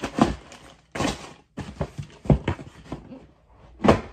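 Sneakers and cardboard shoeboxes being handled and set down: a string of short knocks and thuds with rustling between them.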